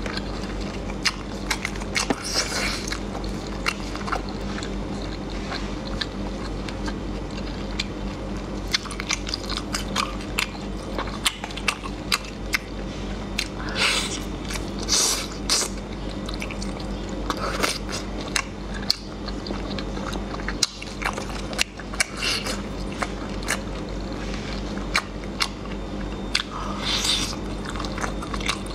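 Close-miked chewing and biting of spicy marinated shellfish meat: wet mouth sounds with many sharp clicks, and a few longer sucking or slurping bursts about 14 and 27 seconds in.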